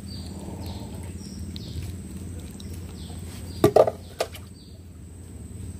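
Short high chirps falling in pitch, repeating about twice a second, over a steady low hum. A few sharp clicks a little past halfway come from hands working the fishing hook and line.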